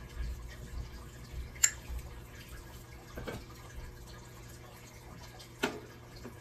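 A few light clicks and knocks as a glass jar candle is handled and set down inside a lantern holder. The sharpest click comes about a second and a half in, a softer one around three seconds, and a duller knock near the end, over a steady low hum.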